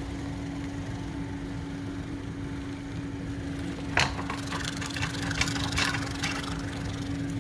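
Steady low hum with a rumble from the Magnorail drive running beneath the model road, which pulls the model car along. A sharp click comes about four seconds in, followed by a few lighter clicks.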